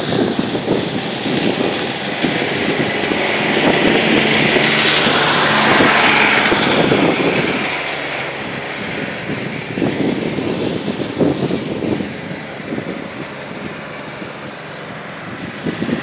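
A motor vehicle passing close by, its noise swelling to a peak about six seconds in and then fading, with wind buffeting the microphone.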